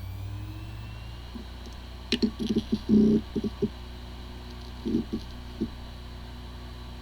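Hard drive spinning up with a rising whine that levels off about a second in, then running with a steady hum while its heads tick in a quick flurry and again a few times later. It sounds like a healthy drive, though it has disk firmware corruption and the computer cannot detect it.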